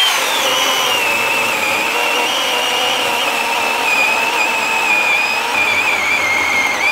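Worx 14-inch battery chainsaw's electric motor whining steadily as its chain cuts through a log under hard downward pressure. It digs through without bogging down, its pitch dipping slightly about six seconds in.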